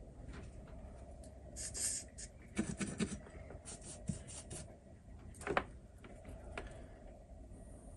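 Small handling sounds at a workbench: scattered clicks, taps and a brief scrape from tools and small parts being handled during soldering work, with a faint steady hum underneath. The loudest click comes about five and a half seconds in.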